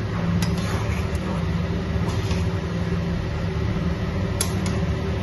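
A spatula stirring thick curry in a kadai, scraping and tapping against the pan a handful of times, two taps close together near the end. Under it runs a steady low mechanical hum, louder than the stirring.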